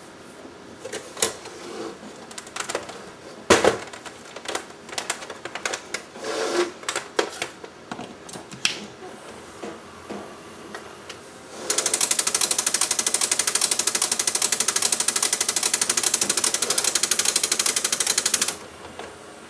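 Clicks and knocks of parts being handled on a disassembled Sony Laserdisc player. About twelve seconds in, a mechanism in the player runs with a loud, fast, even rattle for about seven seconds, then stops suddenly.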